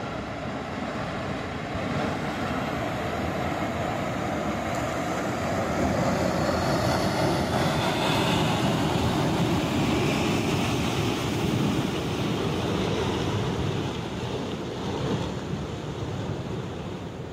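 Mountain debris flow of mud and rock surging down a gully, making a steady heavy rushing noise that grows louder about a third of the way in and eases near the end.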